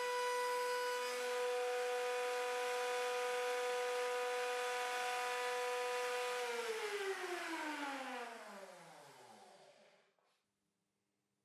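Compact trim router running at full speed under a router table while an MDF board is fed across its bit, giving a steady high whine. About six and a half seconds in it is switched off and winds down, the pitch falling as it fades over about three seconds, stopping near the end.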